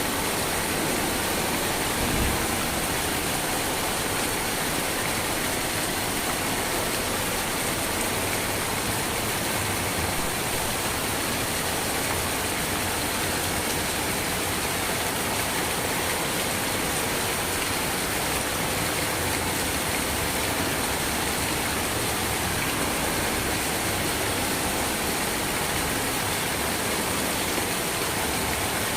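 Steady rain falling: an even, unbroken hiss, with one brief low thump about two seconds in.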